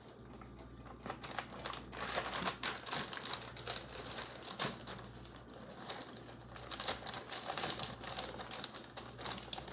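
Plastic bag crinkling and rustling as flour-coated chicken pieces are worked and tossed inside it, an irregular run of crackles and clicks starting about two seconds in. A faint steady low hum lies underneath.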